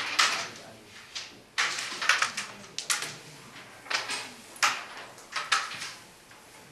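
Carrom striker flicked across a wooden carrom board, clacking into the carrom men. A string of sharp clicks and knocks follows as pieces hit each other and the board's wooden frame.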